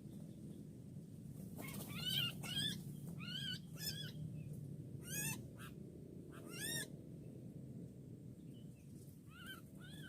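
Sooty-headed bulbul (kutilang) calls: a string of short repeated call notes from about a second and a half in to about seven seconds, then a few more near the end, over a steady low hum.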